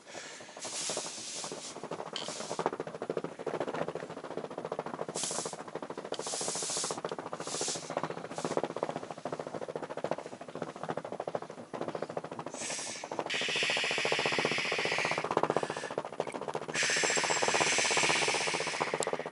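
Felt-tip marker scratching and rubbing across a cloth flag, with the fabric rustling under the hand. About thirteen seconds in, a louder, steady hiss takes over.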